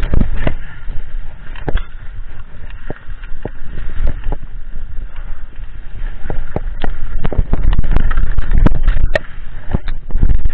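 Mountain bike rattling and knocking as it rolls fast down a rough dirt trail, with wind buffeting the camera's microphone as a steady low rumble. The knocks and clatters come thickest in the second half.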